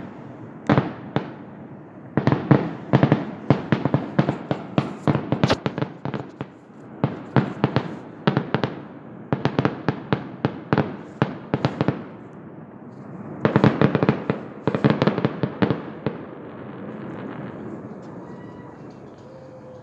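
Fireworks display: rapid volleys of sharp bangs and crackling reports in several clusters with short pauses between them, dying down over the last few seconds.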